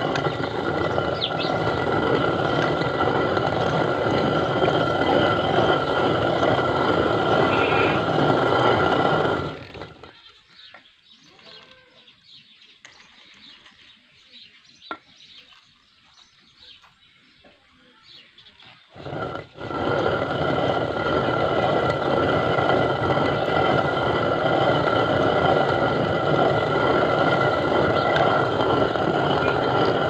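Hand-turned stone quern grinding maize and wheat, a continuous rough grating rumble of stone on stone. About ten seconds in the grinding stops for roughly nine seconds, with only small clicks, then starts up again at full level.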